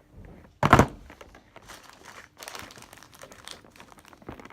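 Plastic packaging crinkling as items are handled and taken out of a slime kit, with one loud bump about half a second in.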